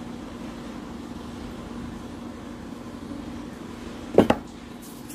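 A steady low background hum, then two sharp knocks in quick succession about four seconds in.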